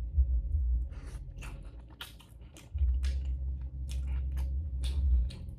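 Close-miked eating of egusi soup and fufu: wet chewing and lip smacks as a run of short clicks, over a low rumble that swells for a couple of seconds in the middle.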